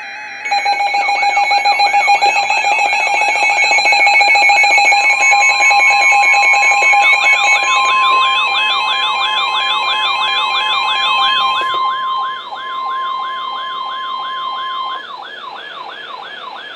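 Weather alert radios sounding their alarms together for a severe thunderstorm warning: warbling siren-like tones with steady, rapidly beeping tones. From about five seconds in to about fifteen seconds, the steady NOAA Weather Radio 1050 Hz warning alarm tone sounds, and the beeping tones cut off near twelve seconds.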